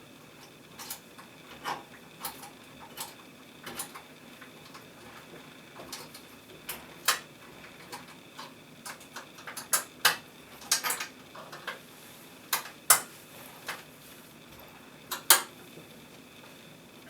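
Irregular light metallic clicks and ticks of a micro screwdriver and tiny screws against a metal GPU mounting bracket in a PC case, with a few louder clinks in the second half.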